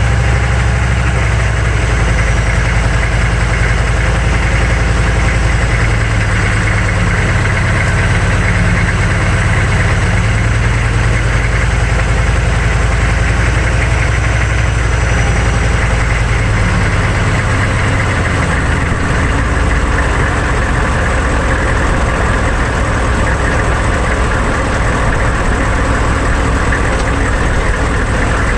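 6.5-litre turbo-diesel V8 of a 1999 GMC 3500 pickup running while the truck drives, heard from beneath the chassis together with tyre, road and driveline noise. The low engine note changes pitch about six seconds in and again around seventeen seconds in.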